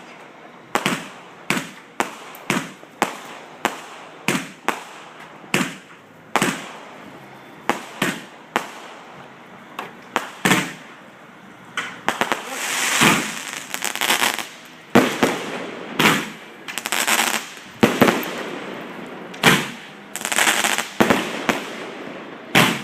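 A fireworks display going off close by: a rapid series of sharp bangs roughly every half second to a second. About halfway through it changes to longer, crackling bursts mixed with more bangs.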